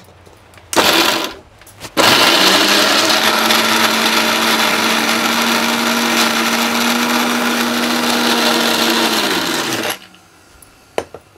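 Electric mixer grinder's small steel jar grinding peeled garlic. A short pulse comes first, then the motor runs for about eight seconds. Its pitch climbs quickly as it spins up and drops away as it winds down, and a single click follows near the end.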